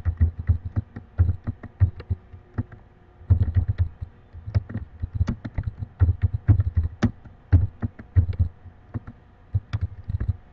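Typing on a computer keyboard: an irregular run of keystrokes, each with a dull thud, pausing briefly about two and a half seconds in.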